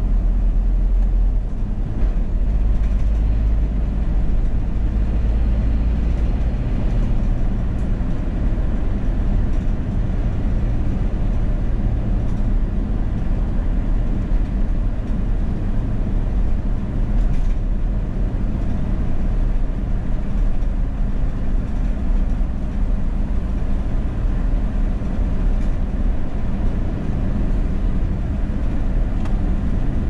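Steady low rumble of a car's road and engine noise heard inside the cabin while cruising at highway speed.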